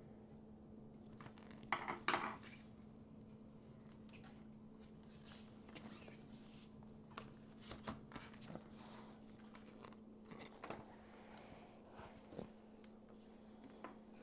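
Hands handling a laptop and its small parts: scattered clicks and taps of plastic and small hard pieces, with a louder cluster of knocks about two seconds in, over a steady low hum.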